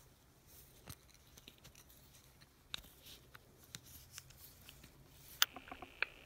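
Faint metallic clicking and scraping as fingers work a steel retaining ring onto the head of a 1950s Western Auto Wizard socket ratchet, with two sharper clicks near the end.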